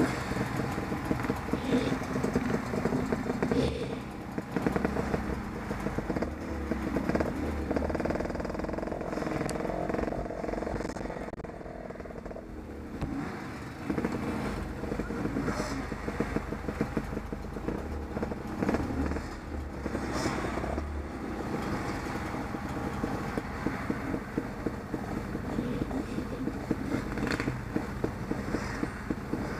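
Off-road motorcycle engine running with a fast pulsing beat, its level rising and falling as the throttle is worked. There is a quieter stretch about halfway through.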